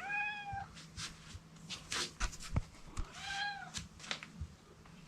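Maine Coon cat meowing twice: a short arched meow at the start and another about three seconds in, with light knocks and rustling between them.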